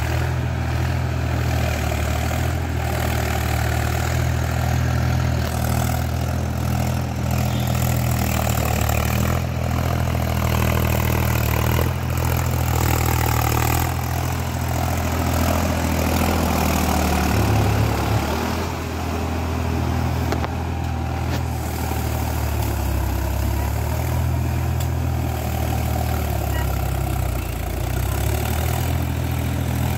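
Mahindra 275 DI TU XP Plus tractor's three-cylinder diesel engine running steadily under load as it pulls a cultivator through a flooded paddy field.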